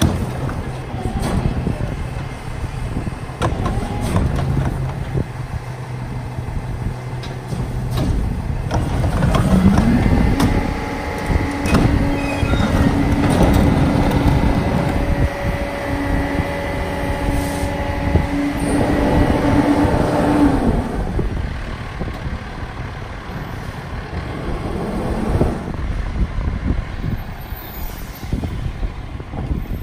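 Freightliner M2 garbage truck's diesel engine idling, then about nine seconds in revving up and holding a higher speed for about eleven seconds, the high idle that drives the Pak-Mor rear loader's hydraulics for tipping carts and packing, before dropping back. Scattered knocks of plastic carts banging on the tippers.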